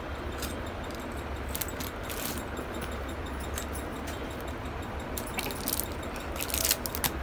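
Scattered light jingles and clinks of a baby's silver anklets and bangles as the baby moves and plays, a few at a time, over a steady background hiss and low hum.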